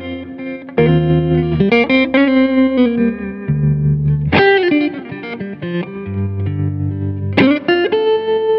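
Background music: guitar over held bass notes, with chord changes every second or two and a few sliding notes.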